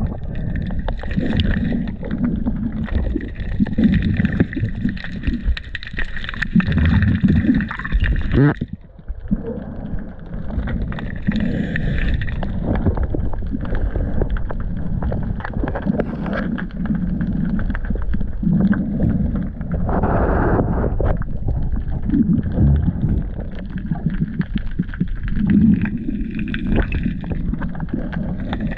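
Muffled underwater rumble and gurgling of water moving against a camera carried by a swimming spearfisher, swelling and easing unevenly and briefly dropping away about nine seconds in.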